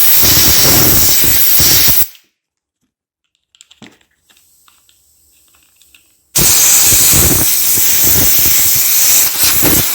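Compressed air from an air-compressor blow gun, blasting with a loud hiss that stops about two seconds in, then a second long blast from about six seconds in. It is blowing out the snowmobile's throttle-lever safety (TORS) switches to clear suspected dirt.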